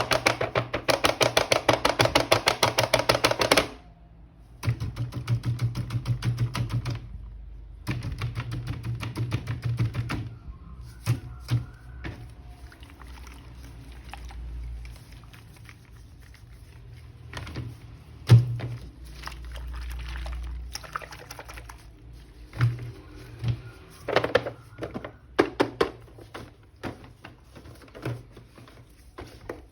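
Bursts of fast rattling clicks, each a few seconds long, with a few single sharp knocks in between.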